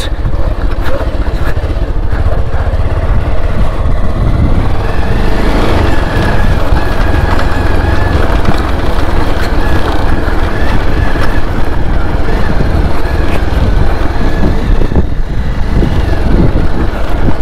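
Motorcycle engine running while riding over a rough dirt road, with heavy wind rumble on the microphone. A faint steady whine sits above it through the middle stretch.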